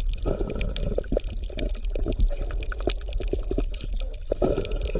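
Steady bubbling water: many small pops over a low rumble.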